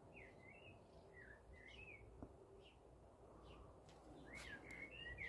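Near silence with faint birds chirping: short twittering notes repeating throughout, and a few faint ticks near the end.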